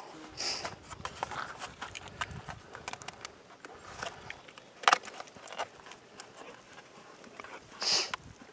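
Aluminium foil pie-plate leech trap crinkling and clicking as it is handled, with scattered light ticks, one sharp click about five seconds in and a short rustle near the end.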